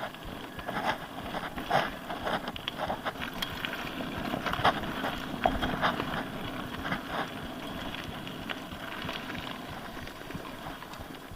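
Mountain bike riding over a rough trail: a steady rush of tyre noise broken by irregular knocks and clatters from the bike.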